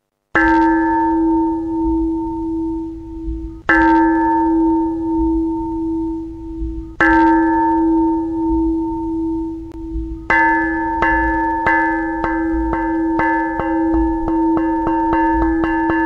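A bell struck three slow strokes about three seconds apart, each left ringing, then struck in a run of strokes that come faster and faster.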